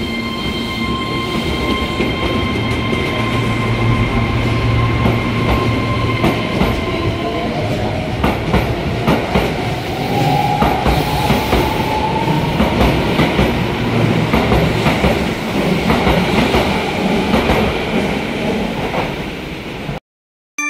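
Keihan 13000-series electric train pulling out of the station. A steady electrical hum gives way to a motor whine that rises in pitch as it accelerates past. Its wheels then clack rhythmically over the rail joints until the sound cuts off suddenly near the end.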